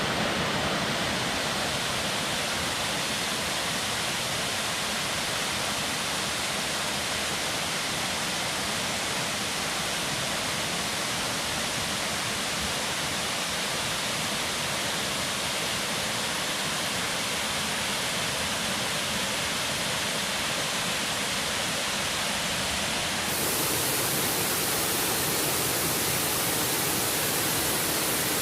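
Waterfall with a heavy flow, a steady rush of falling water. It grows louder and brighter about 23 seconds in.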